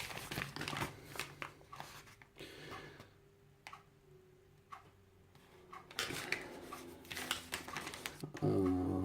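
Paper rustling and small handling clicks as a folded note is unfolded and handled, in two bursts with a quieter gap between. Near the end a short voiced hum or murmur sets in.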